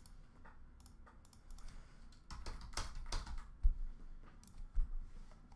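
Typing on a computer keyboard: an irregular scatter of key clicks, busiest a little past halfway, with a couple of heavier taps.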